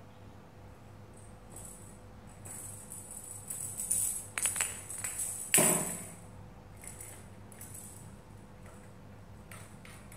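Small bell jingling in irregular, uneven bursts while cats wrestle, with one louder scuffle about five and a half seconds in.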